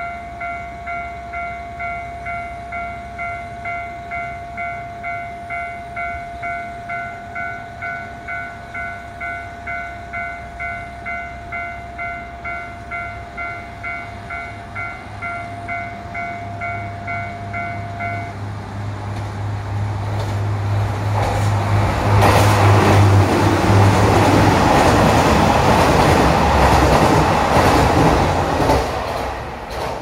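An electronic warning signal pulses about twice a second and stops about 18 seconds in, as a diesel limited express train approaches with a rising engine rumble. The six-car train then passes through the station at speed, loudest for about eight seconds, with rushing and wheel-on-rail noise, then dies away near the end.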